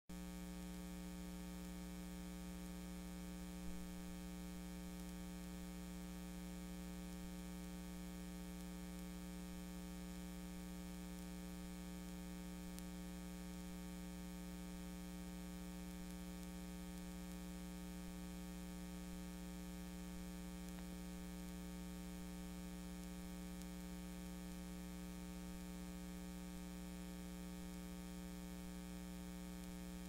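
Steady electrical mains hum with a faint hiss behind it, unchanging throughout, in the audio of a VHS tape playback; one small click about four seconds in.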